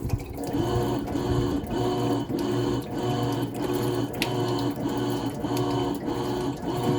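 Washing machine motor driving the agitator, a steady hum pulsing evenly a little under twice a second, starting about half a second in. It starts because air blown into the pressure switch's tube makes the switch read the tub as full, which shows the switch can trigger agitation.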